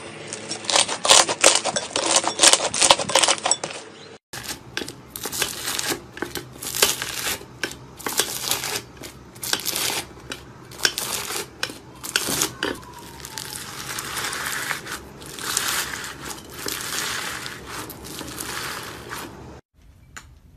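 Hands squishing slime. First a soft green slime gives sticky clicks and pops. After about four seconds a slime packed with small beads takes over, crackling and crunching as it is pressed.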